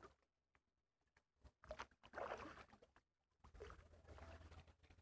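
Near silence, with faint scattered rustles and small knocks; a slightly louder burst comes about two seconds in, and a faint low hum sets in over the last second and a half.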